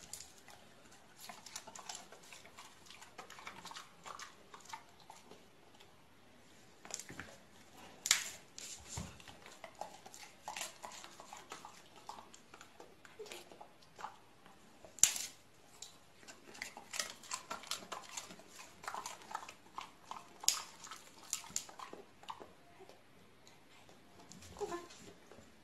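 Two golden retrievers handling a plush toy: faint rustling and scattered soft clicks and taps, with three sharper clicks, and a few short soft dog whines near the middle and the end.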